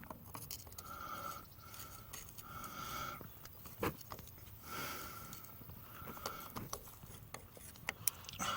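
Screwdriver turning the worm screw of a hose clamp on a hydraulic return hose, in about five short, faint scraping strokes with a slight squeak, and a few small clicks. The clamp is being tightened because it is a little loose and the return line is leaking oil.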